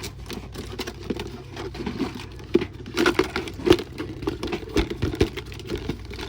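Irregular clicks, knocks and crinkling rustles as items are picked up and handled, thickest from about three seconds in.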